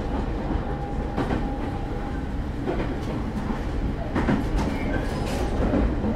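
Nankai Wakayamako Line electric train running along the track, heard from inside the passenger car: a steady low rumble with a few light knocks of the wheels over rail joints.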